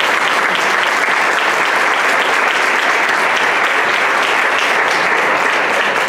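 Audience applauding steadily: many people clapping at the end of a talk.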